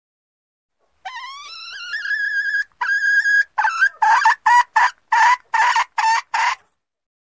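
Junglefowl hen calling: a long note that rises and then holds, a shorter held note, then a run of about eight short clipped clucks, a little over two a second.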